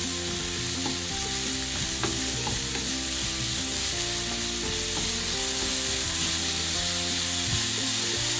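Pork, carrot and onion stir-frying in a frying pan: a steady sizzle, with a wooden spatula scraping through the food and tapping against the pan a few times as it stirs.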